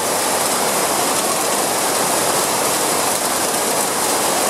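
Heavy tropical rain drumming on corrugated metal roofs and a wet yard, with runoff pouring off the roof edges: a loud, steady, even hiss.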